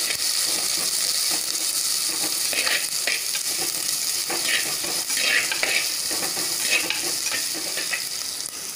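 Chopped shallots sizzling in hot sesame oil in a clay pot. A perforated steel ladle scrapes and clinks against the pot several times as they are stirred.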